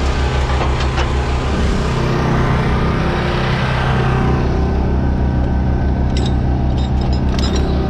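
Kenworth semi truck's diesel engine idling steadily with a low, throbbing rumble. Several sharp metal clinks about six seconds in, from tie-down chains being pulled out of the trailer deck.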